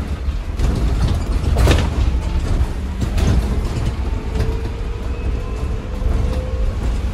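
Cabin ride noise of an ADL Enviro 200 EV electric bus on the move: a steady low road rumble with body and fitting rattles, and a couple of louder knocks from bumps. From about four seconds in, a faint whine from its BYD in-wheel electric motors rises slightly in pitch.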